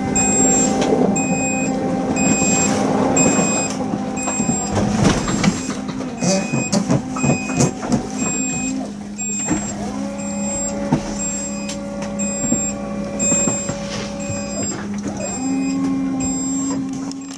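Quick repeated electronic alarm beeps aboard a sailing yacht, a little under two a second, over a motor whirring in runs that start and stop, with a clatter of clicks and knocks.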